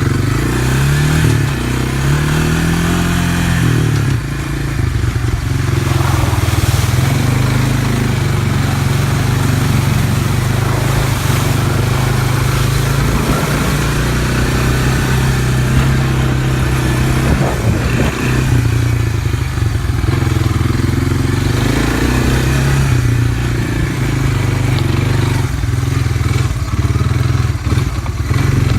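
A vehicle engine running, revved up and back down twice in the first few seconds, then running steadily with small changes in speed.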